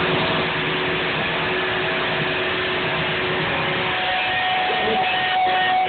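Rock band playing live and loud, distorted electric guitar and cymbals blurring into a dense, steady roar on an overloaded microphone. A long held guitar note sounds through it, giving way to a higher held note about four seconds in.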